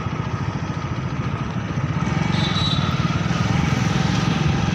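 Motorcycle engine running steadily at low speed, a fast even putter of firing pulses.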